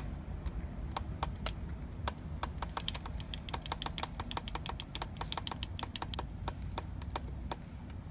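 Plastic buttons on a digital alarm clock being pressed over and over to set the alarm time: a run of short sharp clicks, several a second and unevenly spaced, thinning out near the end.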